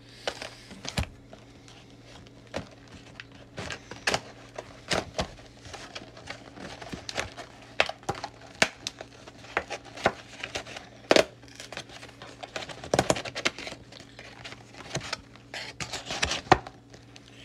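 Plastic wrapping on a cardboard trading-card booster box crinkling and tearing as it is pulled off by hand, with irregular crackles and clicks and some handling of the box.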